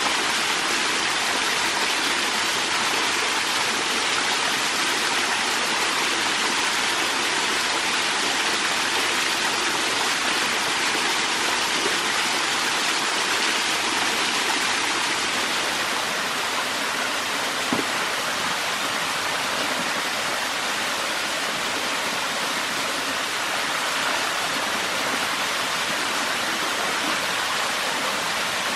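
Small waterfall pouring down a rocky jungle stream: a steady, unbroken rush of falling water.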